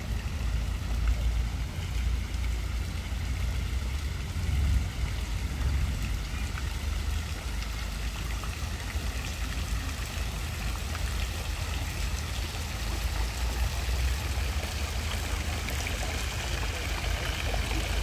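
Steady outdoor ambience: an even rushing hiss over a strong low rumble, with no distinct events.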